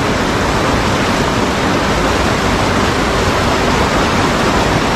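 Loud, steady rush of fast-flowing river water pouring over rocks below a weir.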